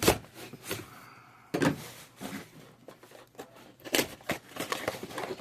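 Action figure packaging being handled and opened: a series of sharp clicks and knocks with short rustles in between.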